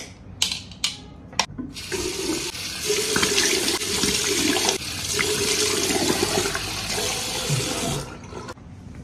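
A bathroom washbasin tap running, with water splashed onto the face from cupped hands. A few sharp knocks come first; the water then runs for about six seconds and is shut off near the end.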